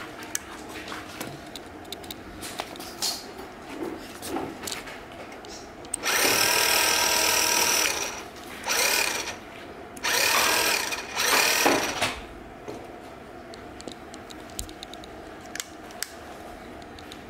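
Electric drive motor of a homemade kids' electric bike whirring in several bursts of one to two seconds each, switched on and off by a handlebar push button.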